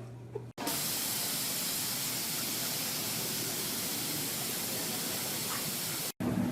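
A steady, even hiss, like spray or rushing water, that cuts in about half a second in and stops abruptly near the end.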